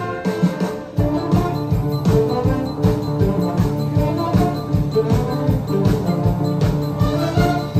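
High-school symphony orchestra playing live, strings carrying sustained pitched notes over a steady drum beat.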